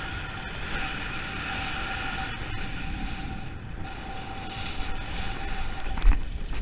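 Snow tube sliding fast over groomed snow: a steady rushing, rolling noise with a faint steady tone running through it, and a hard thump about six seconds in.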